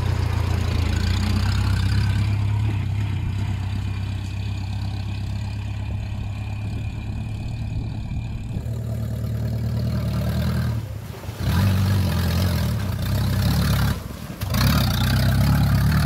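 Engine of an old open military-style jeep running steadily as it drives along a dirt track, a low even hum. The sound drops out briefly twice, about eleven and fourteen seconds in.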